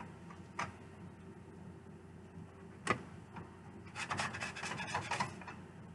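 Kitchen handling noises: a light click, then a sharper, louder click, then about a second of scraping and rattling, over a faint steady hum.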